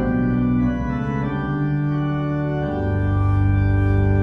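Organ playing the introduction to a hymn in sustained, held chords. The chord changes twice.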